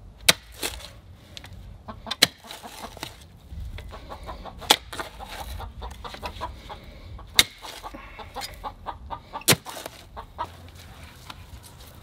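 Hens clucking, with about six sharp metal clanks spaced irregularly as a manual clamshell post-hole digger is driven into the ground.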